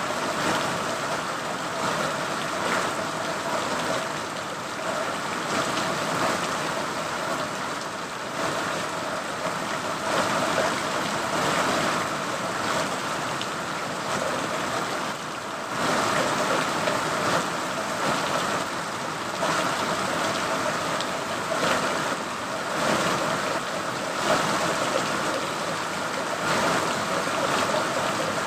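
Steady rain, an even hiss of falling drops with small swells in loudness.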